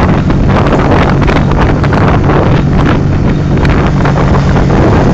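Heavy wind buffeting on the microphone of a camera riding on a moving motorcycle, over the steady hum of the Honda CBR150's single-cylinder engine at cruising speed.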